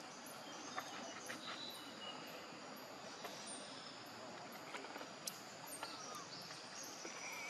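Faint outdoor ambience: a steady hiss with scattered high chirps and a few soft clicks.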